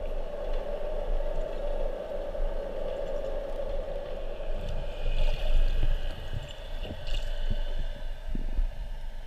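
Muffled underwater noise heard through a GoPro's waterproof housing: a steady hum with water rumbling and swishing against the case, and a few light knocks in the second half.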